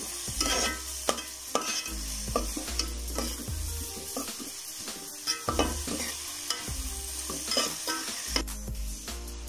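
Sliced onions and green chillies sizzling as they fry in oil, stirred with a metal slotted spoon that scrapes against the metal pot in repeated strokes, roughly once a second.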